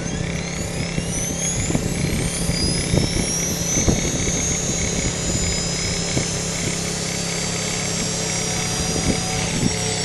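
Electric 450-size RC helicopter spooling up on the ground. The motor whine climbs steeply in pitch over the first few seconds and then holds high, over the steady low hum of the spinning rotor.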